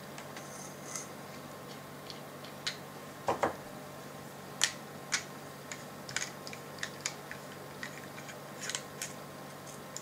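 Scattered light metallic clicks and ticks of a rebuildable atomizer being handled and screwed onto a vaping mod's threaded connector, more of them in the second half.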